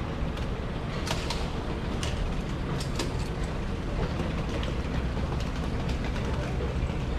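Steady low rumble of subway station background noise, with a few sharp clicks or taps about one, two and three seconds in.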